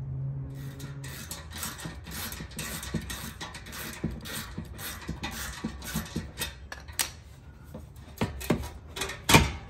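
Hand ratchet with a 13 mm socket clicking in short runs as it loosens the clamp bolt on a stock chrome exhaust tip. Near the end come a few louder metal knocks as the tip is worked off the pipe.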